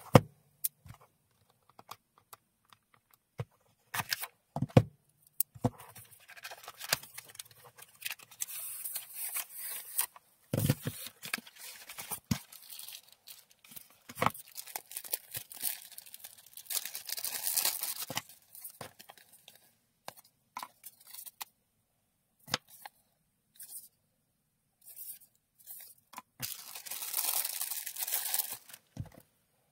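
Unboxing handling sounds: a cardboard box being opened and its contents slid out, with scattered clicks and taps, the sharpest right at the start. Stretches of plastic packaging crinkling and tearing follow, the longest near the end as a small plastic parts bag is handled.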